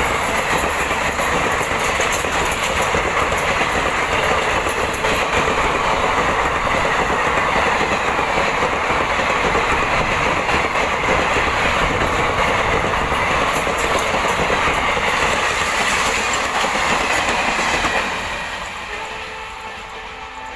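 Express passenger train's coaches rushing past at about 110 km/h, a steady loud rush with wheels clattering over the rail joints. About eighteen seconds in the end of the train passes and the noise fades away.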